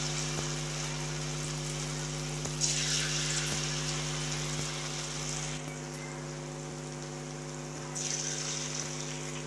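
Batter-coated potato slices deep-frying in hot oil in a steel kadhai: a steady sizzle that swells twice, about two and a half seconds in and again near the end, as more slices go into the oil. A steady low hum runs beneath it.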